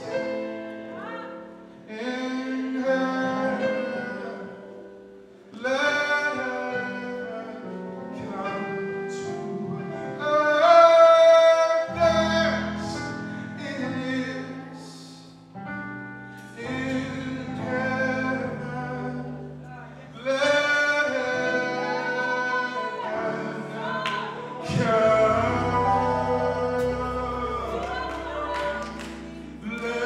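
Live gospel worship music: a male lead singer with backing singers over held instrumental chords, sung in phrases with short pauses between.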